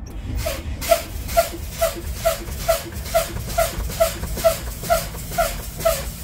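Truck air brake system exhausting air in short hissing puffs, about two a second, as the service brake pedal is pumped over and over, bleeding the air tanks down toward the low-air warning.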